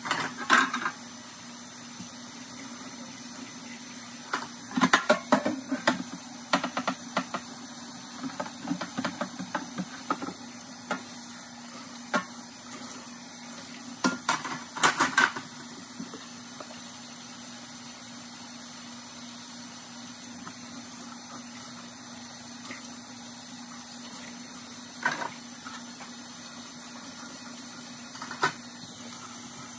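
Dishes being washed by hand under a running kitchen tap in a stainless steel sink: a steady stream of water with bursts of clattering and clinking as dishes and utensils are handled and set in a wire dish rack, busiest in the first half, then two single knocks near the end.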